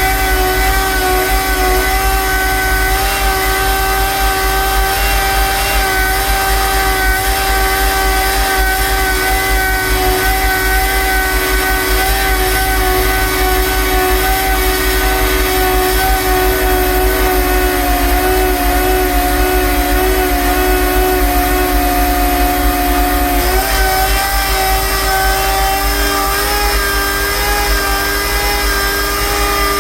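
Rotary screw air compressor running steadily, a constant whine of several steady tones over a low hum, which shift abruptly about 23 seconds in.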